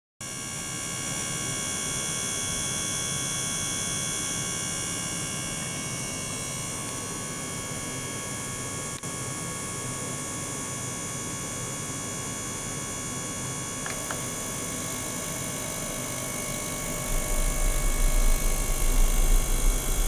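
Small ultrasonic cleaning bath running: a steady hum with several high, whining tones. About seventeen seconds in, a louder, uneven low rumble joins in.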